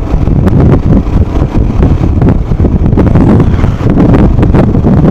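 Wind buffeting the microphone over the steady running of a Royal Enfield Himalayan single-cylinder motorcycle on the move.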